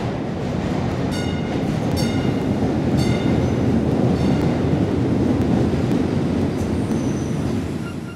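Train running on rails: a steady low rumble, with a short high-pitched squeal about once a second in the first few seconds and fainter high squeals near the end.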